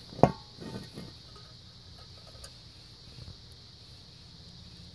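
One sharp metallic clank about a quarter second in as the cast-iron gas-tank part is handled, followed by a few faint handling ticks. A steady high chirring of insects runs underneath.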